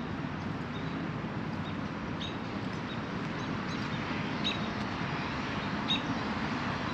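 Birds chirping: short high chirps scattered every second or so over a steady background hiss of city ambience.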